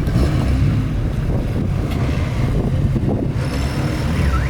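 A car engine idling nearby with a steady low exhaust rumble.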